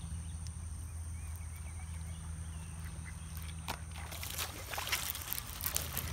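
A low steady hum with faint high chirps. From about four seconds in come irregular splashes and sharp clicks as the fishing reel is handled beside the water.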